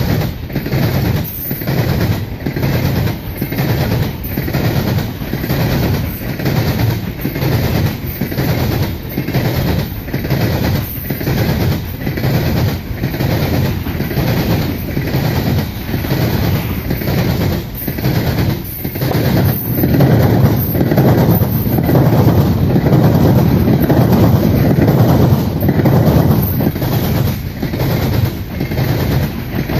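Empty coal cars of a CSX freight train rolling past at speed, their wheels clicking over the rail joints in a steady clickety-clack rhythm. It grows louder about two-thirds of the way through.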